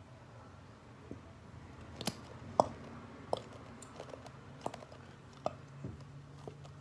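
Plastic school-glue bottle squeezed with its nozzle pointing down, giving a string of short, irregular wet pops and clicks as glue and air spurt out.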